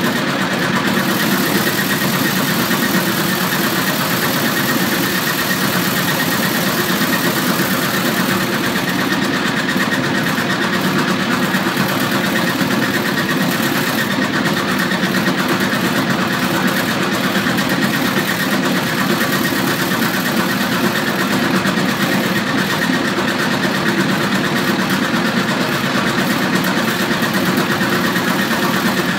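Homemade propolis-screen beating machine running steadily: a 1 hp electric motor belt-drives a metal drum fitted with four rows of cut tyre rubber that beats the propolis off a plastic screen held in it.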